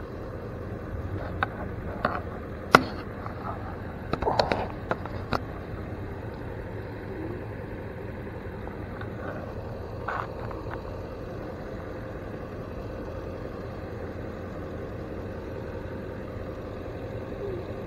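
Steady low rumble of an idling vehicle engine, with a few sharp clicks and knocks over it in the first six seconds, the loudest about three seconds in, and one more about ten seconds in.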